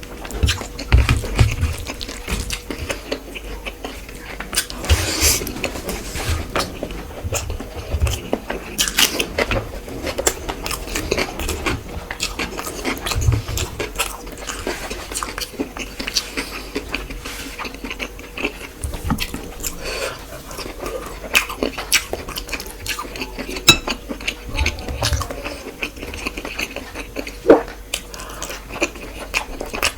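Close-up eating sounds: chewing and wet mouth noises with many small clicks throughout, and now and then a clink or knock against a plate.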